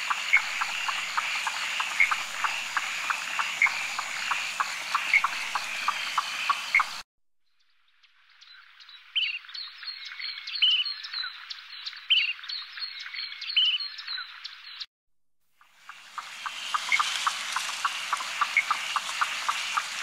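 A chorus of rapid, repeated animal calls over a steady high trill. About seven seconds in it cuts out abruptly. After a second of silence, a different chorus of short rising chirps plays. That one cuts out near fifteen seconds, and the first kind of chorus returns.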